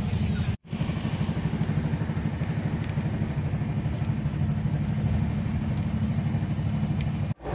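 Steady low rumble of an express train running, heard inside a passenger coach. The sound drops out completely for an instant about half a second in and again near the end.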